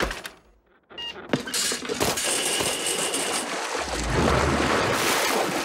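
Water splashing and sloshing as a hospital gurney floats across a river: a steady rushing noise that starts about a second and a half in and swells with a low rumble near the end.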